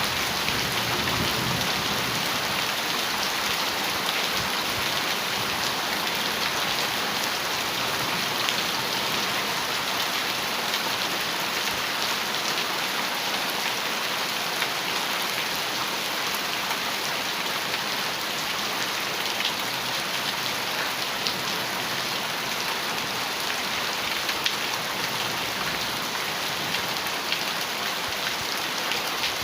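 Heavy rain drumming on a metal roof: a steady hiss with many small drop ticks and no thunder.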